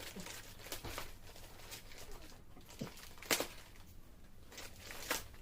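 A small packaging bag being opened and handled: rustling with scattered short crackles. The sharpest crackle comes about three seconds in, with another near the end.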